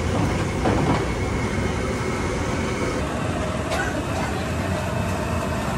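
Steady street background noise with traffic, with a few faint knocks.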